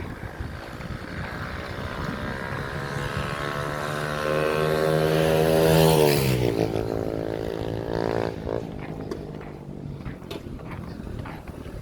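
A motor vehicle passing close by: its engine note grows louder over a few seconds and is loudest about six seconds in. The pitch then drops sharply as it goes past, and the sound fades away.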